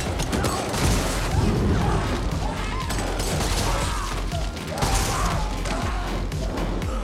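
Film gunfight sound: repeated gunshots, including shotgun blasts of Dragon's Breath incendiary rounds, with mechanical clatter and impacts, over music.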